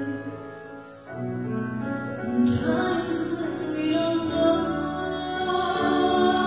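A young woman singing a slow, tender ballad into a microphone, accompanied by a grand piano.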